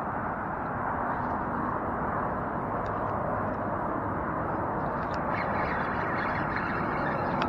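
Steady road traffic noise: an even wash of sound with no single vehicle standing out.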